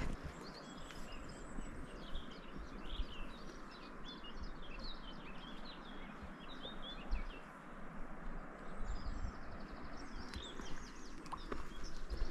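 Small songbirds chirping and singing, many short quick calls one after another, over a steady outdoor hiss.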